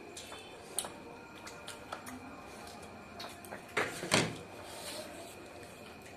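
White plastic food container being handled and tipped over a plastic plate: scattered light clicks and taps, with two louder knocks close together about four seconds in.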